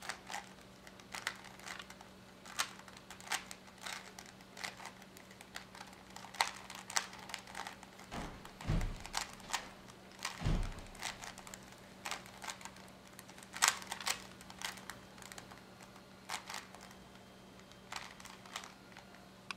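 Plastic Rubik's Cube layers being twisted by hand: a run of irregular clicks and clacks, with two low thumps a little after the middle.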